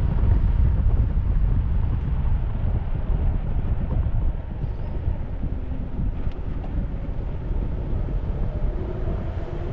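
Wind buffeting a head-mounted camera microphone during a fast electric-bike ride: a steady deep rumble of rushing air that eases a little about halfway through.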